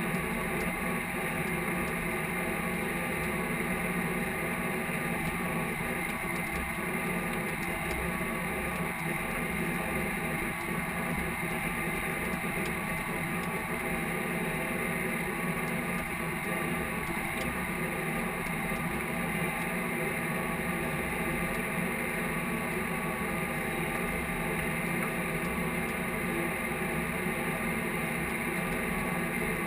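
Case IH tractor's diesel engine running steadily under load while pulling a field cultivator, heard from inside the cab.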